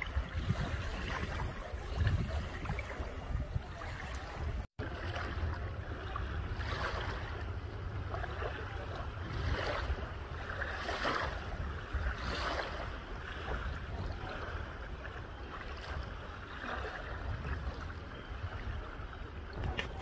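Small bay wavelets lapping and washing over a sandy shore, several soft washes swelling and fading, with wind buffeting the microphone as a steady low rumble. The sound cuts out for an instant about five seconds in.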